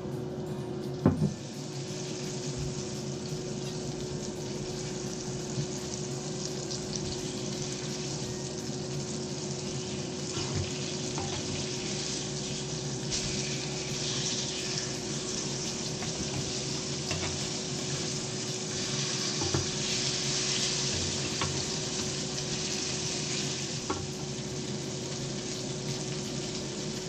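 Flour-dusted fish frying in hot oil in a pan: a steady sizzle that grows stronger in the middle. A sharp knock about a second in, and a steady low hum underneath.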